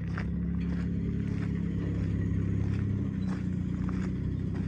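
The diesel engine of an International WorkStar 7300 digger derrick truck idling steadily, with footsteps on gravel.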